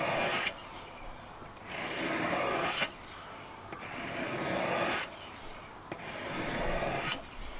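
Sharpening stone on a KKMoon fixed-angle knife sharpener's guide rod rasping along the edge of a steel kitchen knife in repeated strokes, each about a second long and about one every two seconds, four in all.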